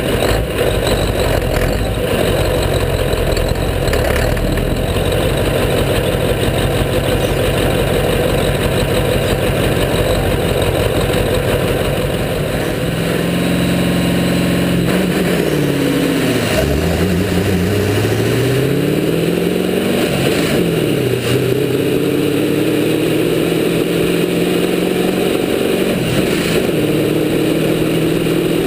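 Scania 143's V8 diesel engine in a drag-racing truck, held at high revs in a burnout with the rear tyres spinning. About a third of the way in it drops back, is revved up and down a few times, then pulls hard with its pitch climbing steadily as the truck launches.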